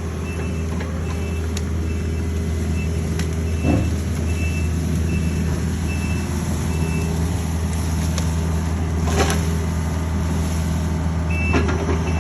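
Takeuchi excavator's diesel engine running steadily under work, its travel alarm beeping about twice a second for the first seven seconds and again near the end. Sharp cracks stand out about 4 s and 9 s in.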